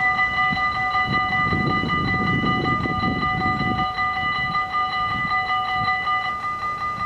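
Dutch level-crossing warning bells ringing in a rapid, steady pulse. A Stadler SNG electric Sprinter train rumbles past for a few seconds, starting about a second in.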